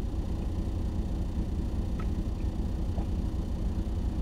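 Steady low rumble of an idling semi-truck diesel engine, heard from inside the sleeper cab, with a few faint small clicks about two and three seconds in.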